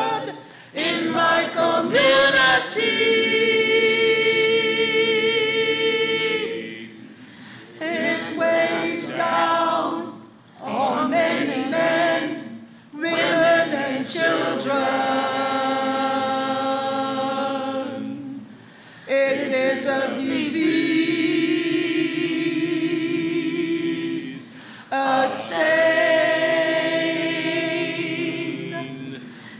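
A mixed group of men and women singing together a cappella, with no instruments. They hold long notes in phrases of several seconds, with short breaks for breath between phrases.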